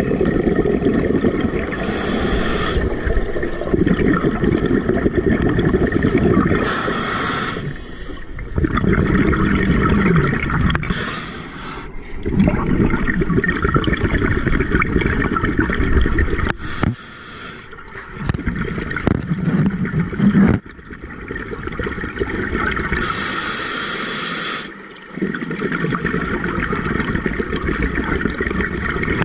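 A scuba diver breathing through a regulator underwater: a short hiss at each inhale, then a long rush of exhaled bubbles, repeating every few seconds.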